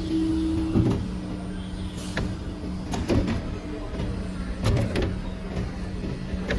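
CNC tube bending machine (SB15CNC-3S-4A) working through its bending cycle: a steady motor hum, a higher motor tone that runs for about the first second and again near the end, and several clunks as the machine moves.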